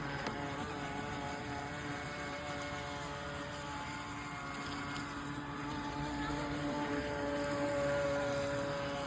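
Radio-controlled model boat's motor running with a steady whine that shifts a little in pitch, growing louder about three-quarters of the way through.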